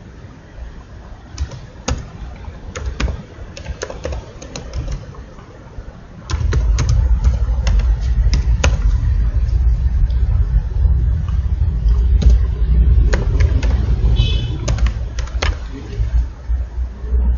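Computer keyboard keys clicking in irregular runs as code is typed. About six seconds in a loud low rumble starts up abruptly and carries on under the typing, fading out near the end.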